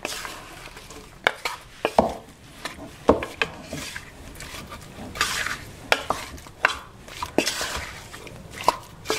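Wooden spoon stirring raw beef chunks, onion and spices with a little water in a stainless steel saucepan: irregular knocks and clicks of the spoon against the pot's side, with wet scraping swishes between them.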